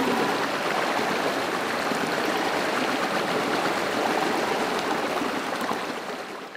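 Rushing water flowing steadily, then fading out near the end.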